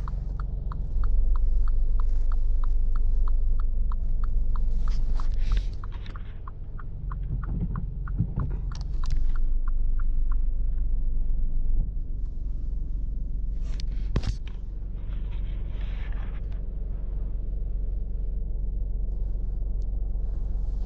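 Low steady rumble of a car engine idling, with a regular ticking about four times a second that stops about ten seconds in, and a single sharp click near the end.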